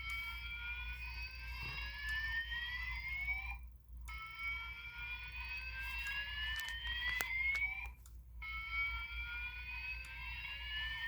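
Fire alarm evacuation speaker sounding a Siemens MXL slow-whoop alert tone, the alarm set off by a pulled pull station. It is a rising sweep about 3.5 s long, repeated with short breaks: two full sweeps, with the tail of one before them and the start of another near the end.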